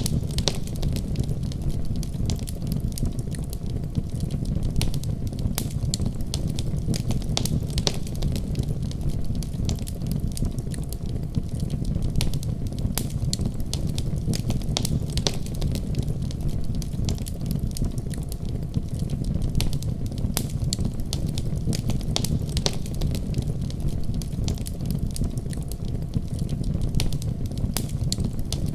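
Fire in a fireplace crackling, with frequent irregular sharp pops over a steady low rumble of the flames.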